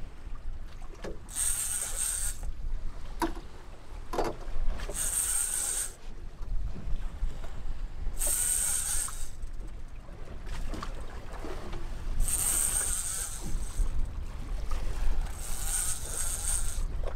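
Fishing reel cranked in short spells of about a second, repeating every three to four seconds, as a hooked fish is pumped up on a bent trolling rod. A steady low rumble of wind and the boat runs underneath.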